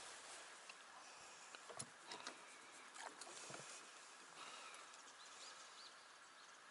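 Near silence in a small boat: a few faint clicks and light knocks of gear being handled against the hull, with a few faint short high chirps.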